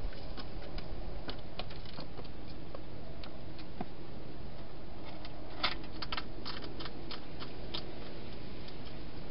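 Wild hedgehog eating in a plastic feeding box: irregular sharp crunching clicks, coming thick and fast for a couple of seconds past the middle, over a steady hiss.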